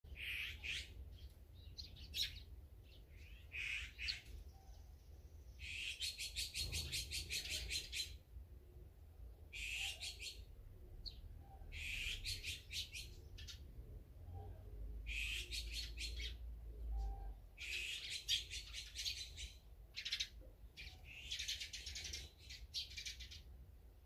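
Small songbirds chirping and calling, with several runs of rapid repeated notes.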